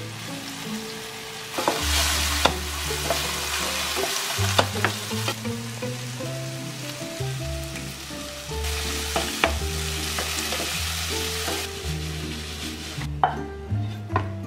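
Mushrooms sizzling in hot oil in a frying pan as they are stir-fried, with sharp clicks of the spatula or pan. The sizzle comes in two long loud stretches and dies away near the end, leaving a few clinks and scrapes, over soft background music.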